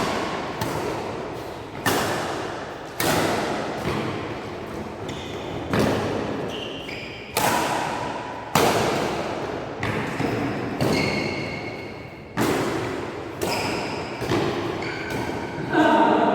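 Badminton rackets striking a shuttlecock in a rally, a sharp hit about once a second, each echoing away in the hall. Short high squeaks come between some of the hits.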